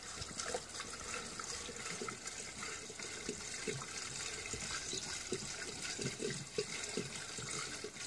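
Fuel pouring from a 5-gallon plastic jug through a funnel with a flexible spout into a backhoe's fuel tank, a steady gurgling stream broken by irregular glugs.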